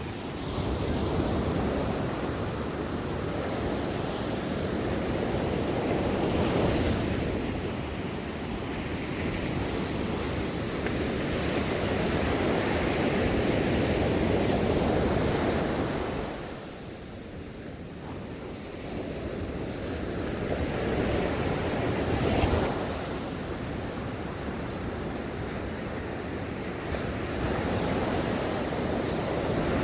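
Ocean waves breaking and washing onto a shore, the surf swelling and ebbing in slow surges, with one quieter lull about two-thirds of the way through.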